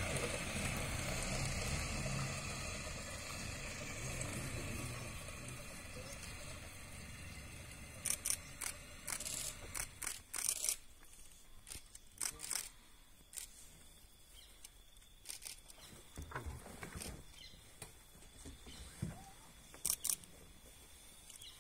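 A vehicle engine idling as a low hum that fades away over the first several seconds, followed by scattered sharp camera shutter clicks, some in quick pairs.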